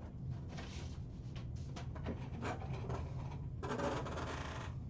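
Trading cards and their packaging handled on a table: a few short rustles and slides, then a longer scraping rustle about three and a half seconds in, over a steady low hum.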